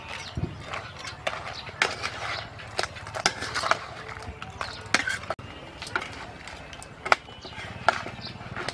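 Metal spatula scraping and clanking against a wok as crabs and leafy greens are stir-fried, with crab shells clattering over a steady faint hiss. Irregular knocks a few times a second, the sharpest two about seven and eight seconds in.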